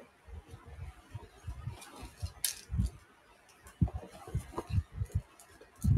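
Handling noise close to a phone's microphone: scattered soft thumps and small clicks, with one sharp click about two and a half seconds in.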